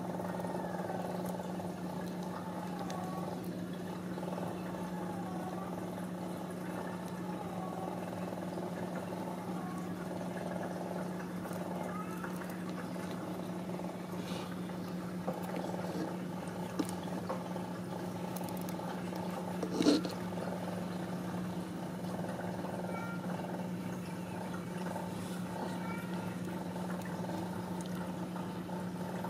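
Ragdoll mother cat purring steadily while her newborn kittens nurse, with a few faint high squeaks from the kittens and one sharp knock about two-thirds of the way through.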